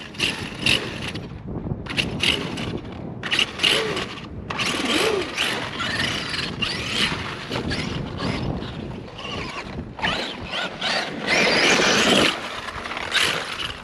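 Arrma Outkast 8S electric RC truck driving in irregular bursts of throttle: its brushless motor whines up and down in pitch, along with tyre and drivetrain noise churning through soft dirt.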